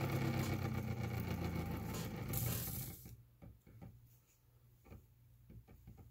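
Home-built pulse motor running, its magnet rotor and heavy flywheel spinning past air-core coils with a steady hum. About three seconds in the sound drops sharply as the supply voltage is turned down, leaving only faint irregular ticks.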